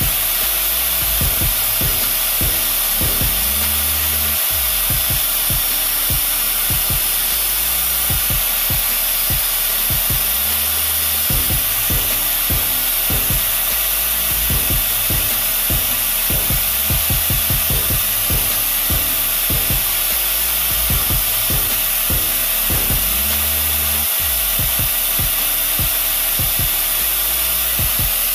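Angle grinder running steadily, its disc grinding down the metal prongs of an electrical plug: a continuous grinding hiss over a constant motor whine.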